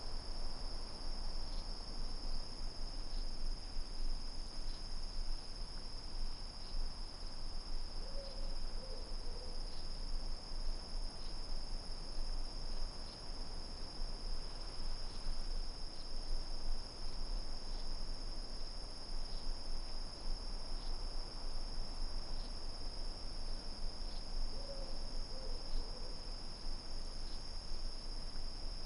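Steady high-pitched chorus of night insects such as crickets, over a low steady rumble. A short call of about three low notes, owl-like, sounds twice: about eight seconds in and again about 25 seconds in.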